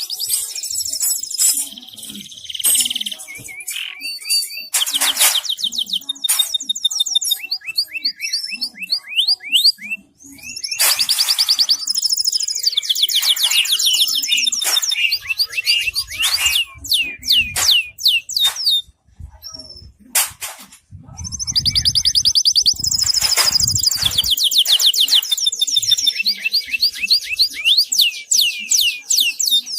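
Timbrado canary singing: long phrases of fast, high trills and rolls, many notes sliding downward, broken by short pauses. A brief low rumble sounds about two-thirds of the way through.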